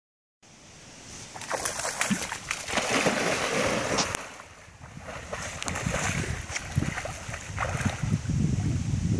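Dog splashing as it bounds out through shallow pond water, churning up spray. The splashing eases briefly about halfway through, then picks up again.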